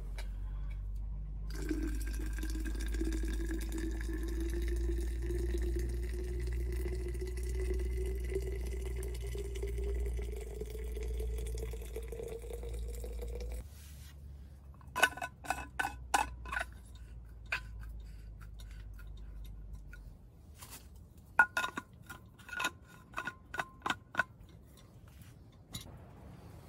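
Liquid poured steadily into a tall vessel for about twelve seconds, the pitch of the filling rising slowly as it fills. After that comes a run of light, ringing clinks of metal and glass tableware.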